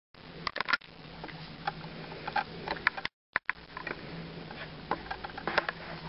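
Scattered small clicks, taps and rustles over a low steady hum as a young puppy moves and noses about on a fleece blanket, with a brief drop to silence about three seconds in.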